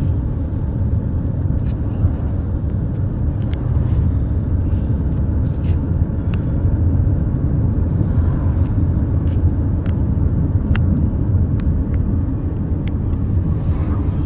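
Steady low rumble of a moving car heard from inside the cabin: road and engine noise, with a few faint ticks.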